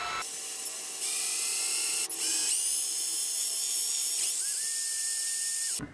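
Cordless drill with a small bit spinning fast as it bores through a headphone cord's rubber grommet, a high whine that gets louder about a second in, dips briefly near two seconds, and stops abruptly just before the end.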